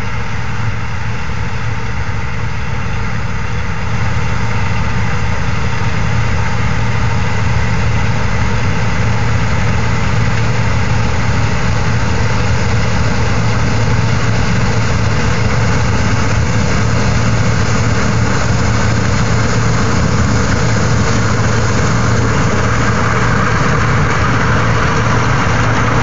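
John Deere 9870 STS combine harvesting soybeans, its diesel engine and threshing machinery running with a steady low hum. The sound steps up a little about four seconds in and grows brighter as the combine draws close near the end.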